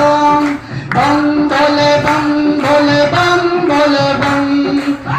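Music with singing: a voice holds long, steady notes that step from one pitch to the next, with a short break about half a second in.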